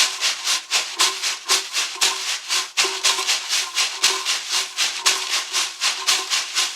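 Homemade shakers, two plastic cups filled with popcorn kernels and taped together, shaken in a steady rhythm of about five rattling strokes a second.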